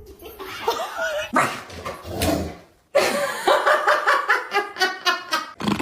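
A dog whining and yipping. After a sudden break about halfway through, a rapid run of short yips or barks follows, about five a second.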